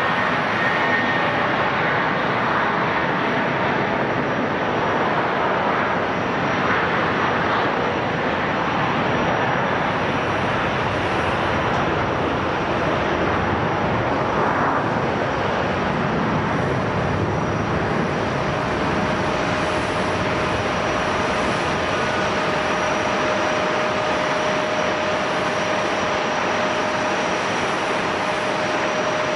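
Airliner's engines running at the airport, a steady dense roar; a steady whine joins in about two-thirds of the way through.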